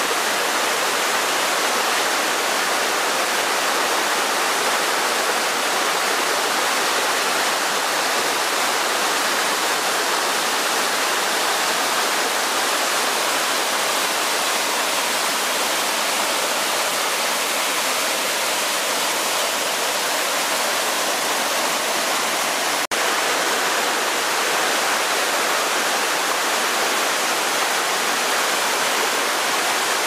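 Falling water of the Gedmyshkh waterfall, many thin streams dropping from a cliff and splashing down over rocks, making a steady rushing hiss.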